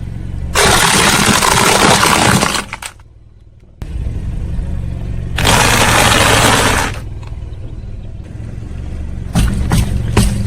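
A car runs at low speed while its tyre rolls over and crushes brittle objects. There are two long crackling crunches of about two seconds each, then several sharp snaps near the end.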